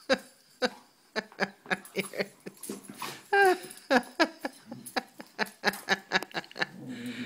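Puppies whining and yipping in play, a quick run of short squeaky cries with one longer whine, falling in pitch, about three seconds in.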